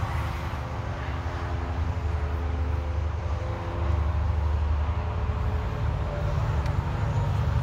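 2015 Ford F-550 truck's engine idling steadily.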